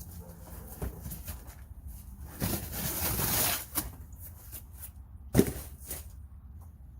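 Hands handling packaging and parts: a rustle lasting about a second, a sharp knock about two seconds later, and a few small clicks.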